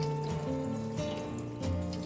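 Background music with sustained notes and a moving bass line, over water running from a kitchen tap into a sink.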